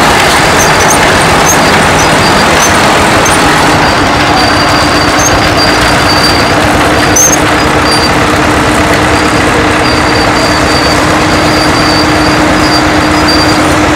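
Vintage tractor and crawler engines running as the old machines drive slowly past; a steady drone joins about three and a half seconds in.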